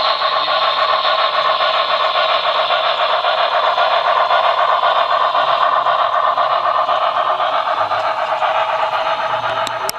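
Model freight train rolling along the layout track: a steady, fast clatter of the cars' wheels on the rails as the train runs past, with two sharp clicks near the end.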